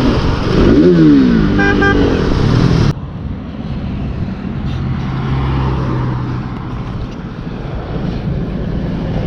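Road traffic: vehicle engines and horns, loud with rising and falling engine pitch for the first three seconds, then cutting abruptly to quieter roadside traffic noise with a steady engine hum.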